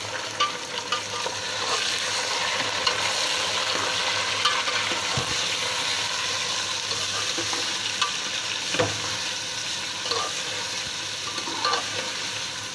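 Raw beef pieces sizzling as they fry in hot mustard oil with browned onions, being browned at the start of a curry. A metal ladle stirs them, scraping and knocking against the metal pot now and then.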